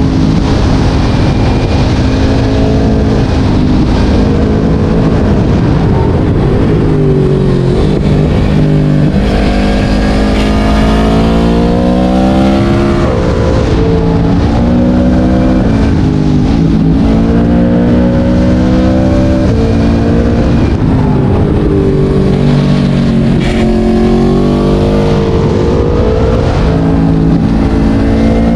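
Yamaha MT-10's crossplane inline-four engine running hard through a LeoVince decat exhaust. Its pitch climbs steeply under acceleration, drops sharply at gear changes and falls away when the throttle is eased, several times over.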